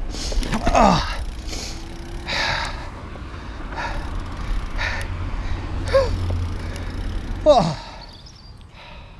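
Heavy breathing from the rider, repeated about once a second, with a few falling sighing sounds, over the steady low rumble of wind on the camera microphone and bicycle tyres on the road. The rumble stops near the end, leaving a quieter background.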